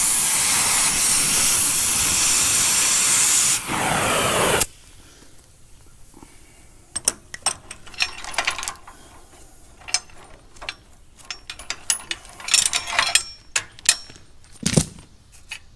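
Oxy-fuel cutting torch hissing steadily as it cuts through an old steel chain, stopping suddenly after about four and a half seconds. Then scattered metal clinks and knocks as the cut chain is handled on the plow frame.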